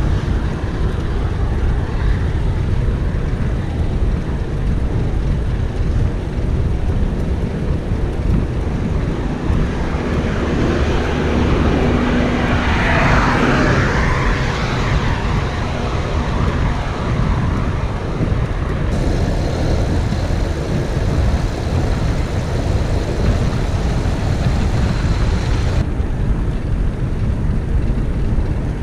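Steady wind noise on the microphone of a camera on a moving bicycle, with road traffic going by alongside. A louder vehicle passes about halfway through.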